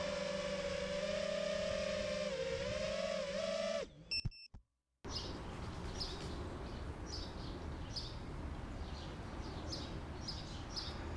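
FPV quadcopter's brushless motors humming steadily, wavering and dipping in pitch, then cutting off about four seconds in as the quad sets down; a few short beeps follow in near silence. After that, a bird chirps over and over, about every half second or so, over outdoor background noise.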